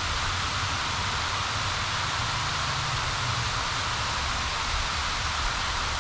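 Steady rushing hiss with a low rumble underneath and no distinct events; outdoor background noise by a river.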